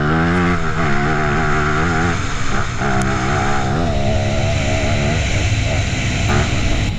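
Yamaha WR250F single-cylinder four-stroke dirt-bike engine with a big-bore kit and FMF exhaust, running loud with the revs rising and falling several times.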